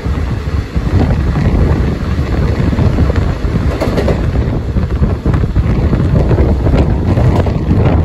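Indian express train running at speed, heard from an open coach window: a loud, steady rumble and rush with wind buffeting the microphone. Another train's coaches pass close alongside on the next track, and sharp wheel clacks come now and then over rail joints and points.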